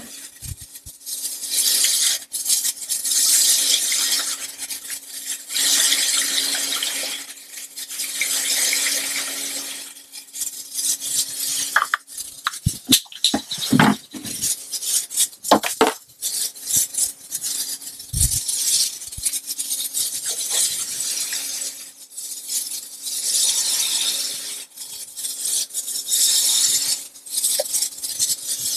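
Alcohol poured from a plastic jug through a plastic funnel into reagent bottles, in several pours of a few seconds each that hiss and splash, with plastic knocks and clinks between them.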